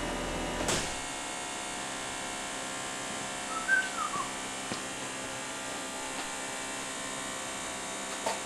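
Steady electrical hum of test-bench control-room equipment, with a few light clicks as buttons on the control console are pressed. About three and a half seconds in there is a brief whistle-like tone that falls in pitch.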